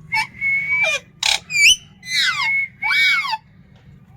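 Pet parrot whistling: a string of about six short whistled calls, some held on one note and some sweeping up and down. About a second and a half in comes a quick run of chirps stepping down in pitch.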